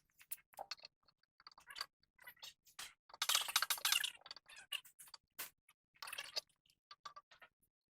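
Scattered sharp clicks and light metallic knocks of hand tools being handled, with a denser run of rapid clicking, like a ratchet, about three seconds in.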